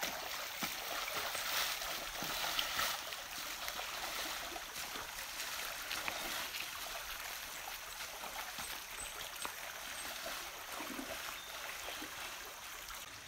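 Shallow forest stream running over stones: a steady trickling and babbling of water.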